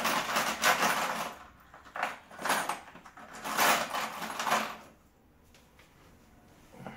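Screws and small metal hardware rattling and clinking as they are rummaged through by hand, in three bursts.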